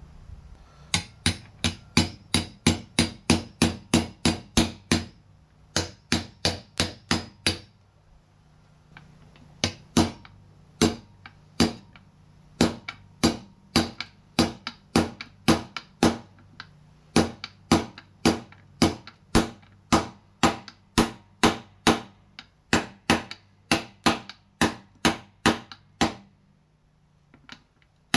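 Hammer striking a socket used as a bearing driver, tapping a front wheel bearing into a dirt bike wheel hub. Repeated sharp metallic taps, about two or three a second, in runs with short pauses, the longest a little past a quarter of the way in and near the end.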